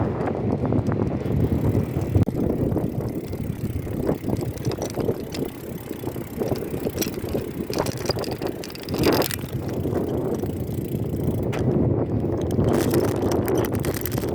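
Steady road and wind noise of a mountain bike being ridden, with a few short clicks and rattles from the bike.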